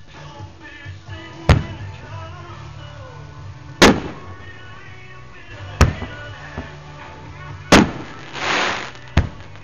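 Aerial firework shells bursting: five sharp bangs about two seconds apart, with a hissing rush shortly before the last. Music plays underneath.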